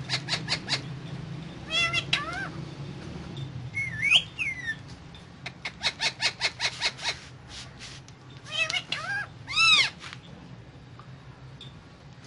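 Indian ringneck parrot calling: bursts of rapid chirps, a couple of gliding whistles, and a loud, arching squawk near the end.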